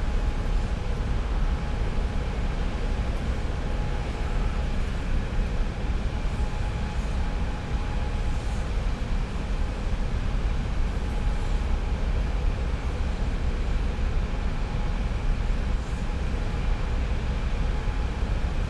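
Oil refinery plant machinery heard up close: a steady deep rumble under a broad hiss, with a couple of faint steady humming tones on top.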